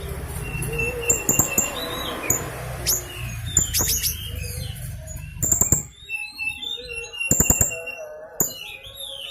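Young blue-crowned hanging parrot (serindit) calling actively, with clusters of shrill, high-pitched chirps and sharp ticking notes. There is a low steady hum under the first half.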